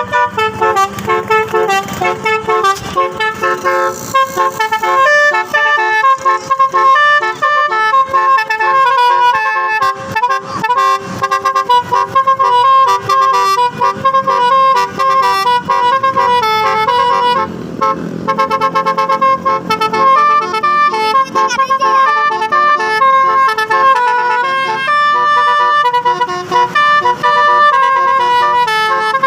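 Basuri telolet horn, a multi-note musical air horn, playing a fast melody of short horn notes that jump quickly from pitch to pitch.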